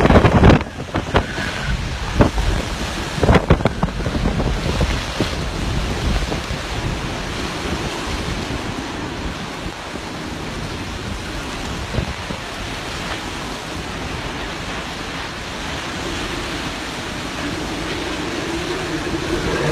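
Hurricane eyewall wind blowing hard across the microphone: several sharp gust blasts in the first few seconds, then a steady, heavy rush of wind.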